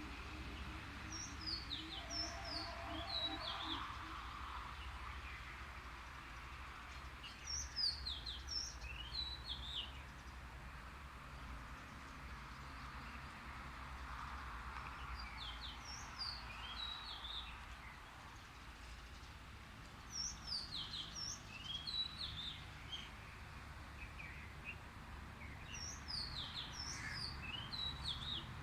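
Birds singing: bursts of quick, high chirps sliding downward, repeated every five or six seconds, over a steady low background hum.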